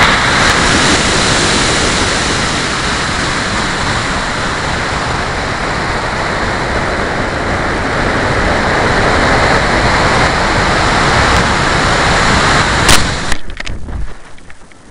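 Steady loud rushing of air and motor noise on a model rocket's onboard camera as it climbs under an Aerotech F-24 motor and coasts on. About 13 seconds in, a sharp pop as the ejection charge fires for recovery, after which the rushing breaks up and drops away.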